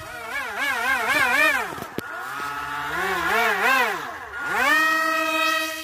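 Electric motor and propeller of a home-made Su-27-style foam RC plane whining, its pitch rising and falling about three times a second and dipping low twice, then climbing to a steady high whine near the end.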